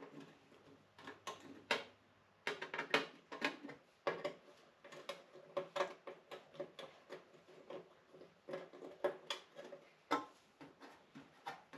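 A ratchet wrench being worked by hand, clicking in short irregular bursts of a few clicks each, with light metallic knocks between.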